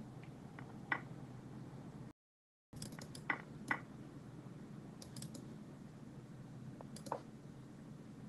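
A handful of sharp clicks, single and in quick pairs, as chess moves are played on a computer, over a low steady hum. The audio cuts out completely for about half a second a couple of seconds in.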